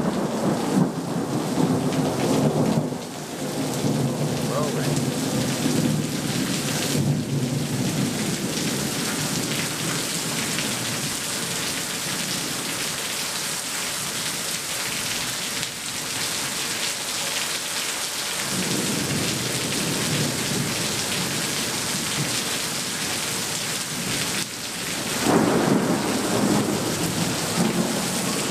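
Heavy rain pouring steadily onto a screened pool enclosure and paved patio, a dense continuous hiss. Deeper, louder swells come in the first few seconds, again about two-thirds of the way through, and strongest near the end.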